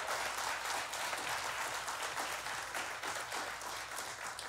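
Audience applauding, many hands clapping, the applause thinning out near the end.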